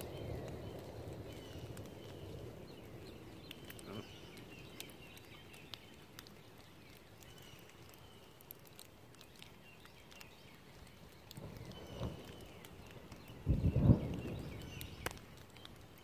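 Thunder rumbling and fading away over the first few seconds, then a short, loud low rumble about fourteen seconds in, over faint high chirps and scattered ticks.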